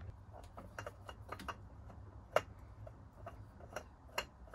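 Faint, irregular clicks and light ticks of a new oil filter being spun on by hand, with two sharper clicks about two and a half and four seconds in.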